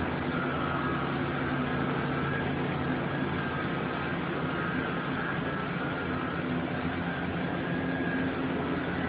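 Steady drone of factory production-line machinery: an even noise with a few constant hum tones, unchanging throughout.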